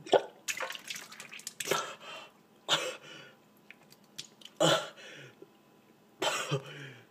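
A young man coughing, gagging and spluttering after swallowing a disgusting drink mixed with hot sauce and mustard. The sounds come as about six short, harsh bursts, a second or so apart, with quiet breaths between them.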